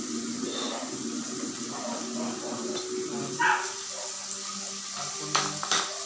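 Pork belly sizzling on an electric grill plate, a steady hiss. Two sharp clicks of utensils come near the end.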